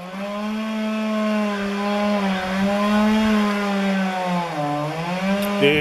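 Two-stroke chainsaw running at high revs, cutting into a palm tree trunk. Its pitch wavers and sags briefly about four and a half seconds in, then recovers, as the saw takes load in the cut.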